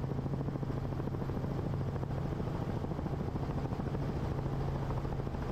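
Helicopter in flight, heard from inside the cabin: the engine and rotor keep up a steady low drone with a fast flutter underneath, during a shallow approach.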